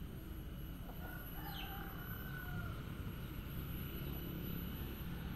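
Faint background with a low steady rumble, and a distant bird giving a short falling chirp and a few thin calls about a second and a half in.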